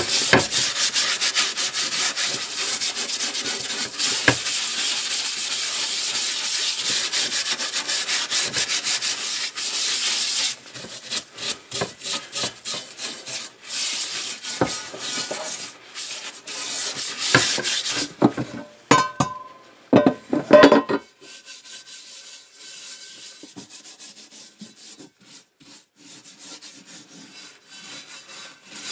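A cast iron skillet being scrubbed in a sink to clear old crud loosened by a chemical strip. A steady hiss of scrubbing breaks into separate strokes about ten seconds in, with a few sharp ringing knocks around twenty seconds in, then quieter scraping.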